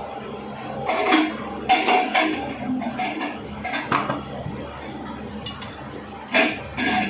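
Dishes and cutlery clinking and scraping on a plate during a meal: a string of irregular short knocks, the loudest about a second in and near the end, over the steady hum of an electric fan.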